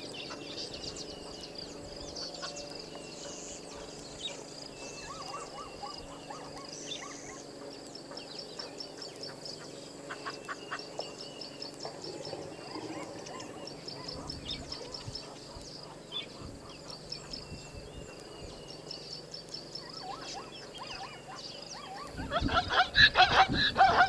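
Chorus of wild birds chirping and trilling, with a loud run of rapid, harsh calls starting near the end.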